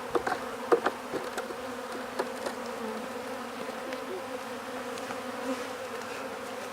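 Honey bees buzzing in a steady hum around an opened hive, with a few light clicks and knocks in the first couple of seconds as wooden frames are handled. The hive has few bees left.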